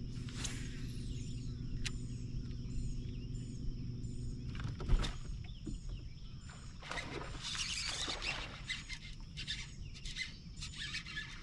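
Small birds chirping in short repeated notes over a steady low hum. The hum stops about halfway with a single sharp knock, followed by a few seconds of rustling noise.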